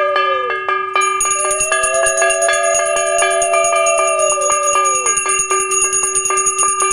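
Puja hand bell rung rapidly and continuously in a Hindu blessing of a new car, an even run of quick strikes with a bright, sustained ring. Beneath it, a long held note falls in pitch at its end, twice.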